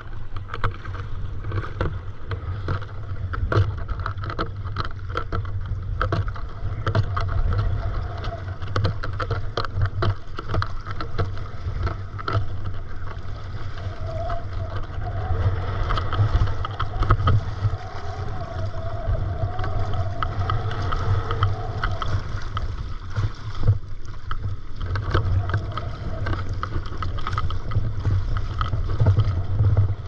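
Stand-up paddleboard on open water: paddle blades dipping and pulling through the water and small waves splashing against the board, over a steady low rumble of wind on the microphone.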